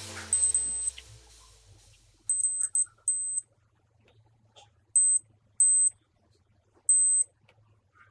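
Hioki 3244-60 card multimeter's continuity buzzer beeping as its probes touch points on a soldered circuit board: about six short high-pitched beeps of varying length, a few broken into quick chirps. Each beep signals an unbroken connection between the probed points. Background music fades out in the first second or two.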